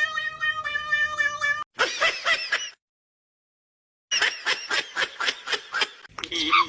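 Cat meow sounds, edited into fast runs of short repeated calls, about five a second. A long steady pitched tone comes first, and about a second of silence splits the two runs.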